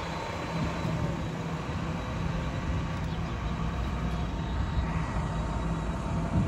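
Heavy diesel engine running steadily: a low, even drone with no change in speed.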